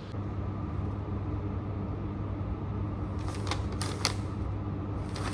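Steady low room hum, with a few quick rustles and clicks about three seconds in and again near the end as sheets of paper and the phone are handled close to the microphone.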